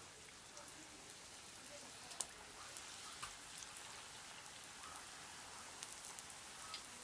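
Meat samosas deep-frying in hot cooking oil: a steady sizzle with scattered sharp crackles and pops, the loudest about two seconds in.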